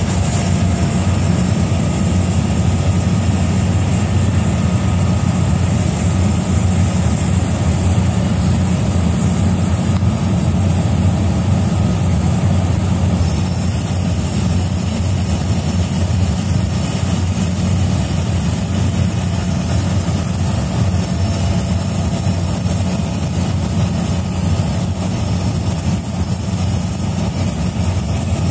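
Cessna 208B Grand Caravan's Pratt & Whitney PT6A turboprop engine and propeller running steadily at low power while taxiing, heard inside the cabin as a loud, even drone. A high thin whine over the drone drops away about halfway through.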